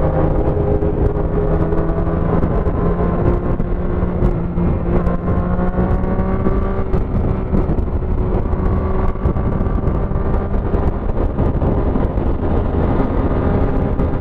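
Motorcycle engine running at highway speed under heavy wind rush on the microphone and wet-road noise. The engine note climbs gradually a few seconds in as the bike speeds up, then holds steady.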